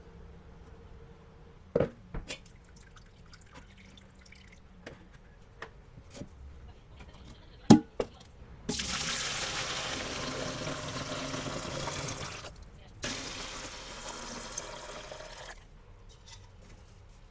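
A few sharp knocks as metal pots are handled in a steel sink, the loudest about eight seconds in. Then wort pours into an aluminium pot for about four seconds, stops briefly, and pours for about two more.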